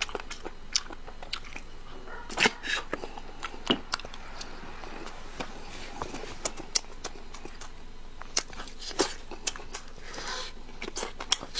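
A person chewing and biting food close to the microphone, with sharp mouth clicks scattered irregularly.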